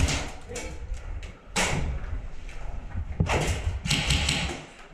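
Airsoft guns firing in three short bursts, with knocks and clicks between them.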